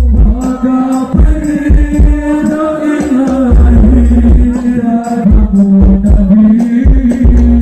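Live sholawat, Islamic devotional singing with music, played loud through a large 'horeg' sound system, with heavy deep bass hits under the sung melody.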